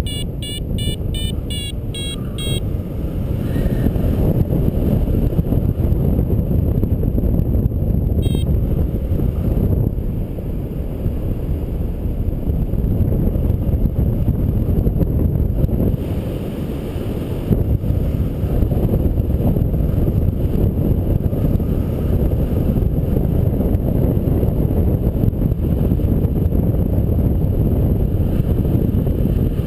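Wind rushing over the microphone of a paraglider in flight: a loud, steady rush, heaviest at the low end. In the first two seconds or so, a rapid string of high beeps sounds over it.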